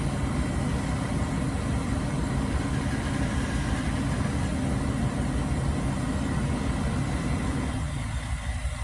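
Engine of a truck-mounted crane running steadily while it holds a load of drywall up at a second-story opening. Near the end the rumble thins out and gets a little quieter.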